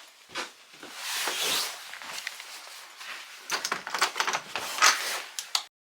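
Rustling and a scatter of clicks and knocks from someone moving about and handling things, with a longer hiss early on and a busy run of sharp knocks later; it cuts off abruptly near the end.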